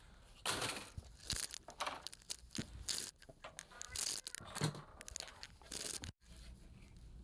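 Irregular scraping and rustling with a few sharp clicks, from handling circuit boards and parts on a workbench while hunting for a replacement fuse. It cuts off abruptly about six seconds in, leaving a low steady hum.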